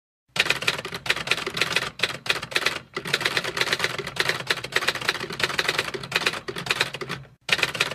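Typewriter keys clacking in a fast, steady run of keystrokes, with a few short pauses.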